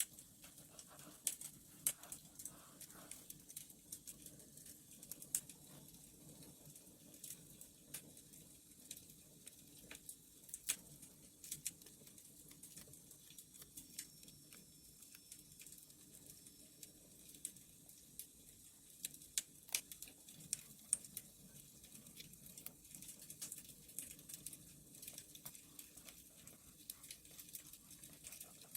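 Wood fire crackling: irregular sharp pops and snaps, a few louder than the rest, over a faint steady low rush.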